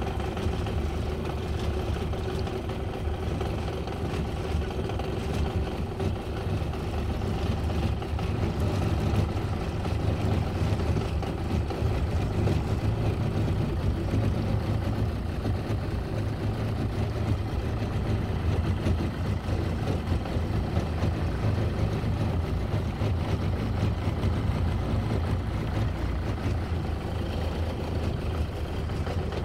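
Boat's outboard motor running steadily at idle, a constant low hum.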